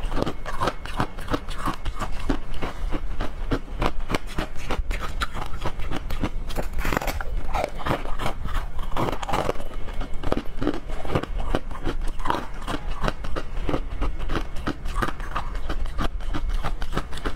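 Close-miked crunching and chewing of a hard frozen treat: a steady run of rapid crisp crackles as the frozen bar breaks up between the teeth.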